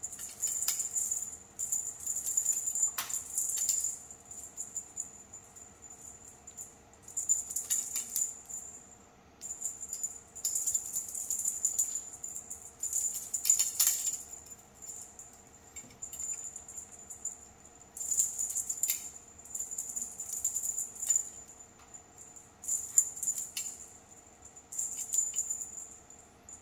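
Feather cat-teaser wand toy flicked and shaken through the air, giving a high, dry rattling rustle in repeated bursts of a second or two with short pauses between.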